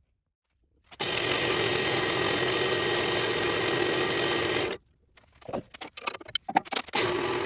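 Small wood lathe motor running steadily, cutting off abruptly a little under five seconds in. A quick run of clicks and knocks follows, and then the motor runs again.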